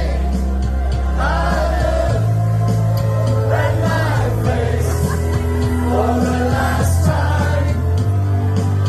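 Live band playing a song: a bass line held on long low notes that change every couple of seconds, under short sung phrases.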